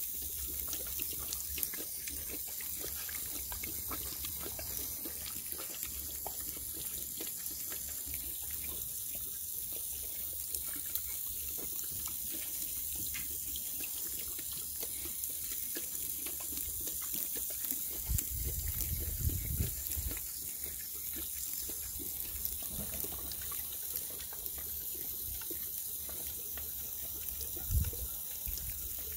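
Water running and splashing from a garden hose nozzle as a Saint Bernard drinks from it, lapping at the stream. A few low bumps come about two-thirds of the way through and again near the end.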